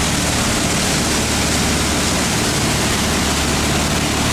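A boat's engine running with a steady low hum under a constant rush of wind and water noise.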